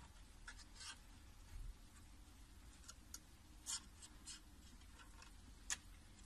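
Faint, scattered light scratches and ticks over near silence, with a sharper click near the end as the loudest.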